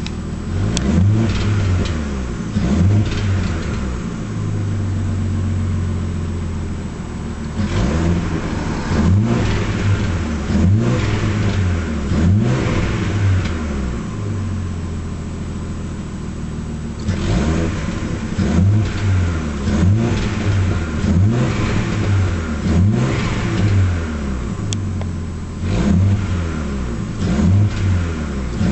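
Nissan Skyline's RB20 2.0-litre straight-six revved in repeated short blips, with two longer steadier stretches and a few sharp pops. The engine is misfiring and backfiring.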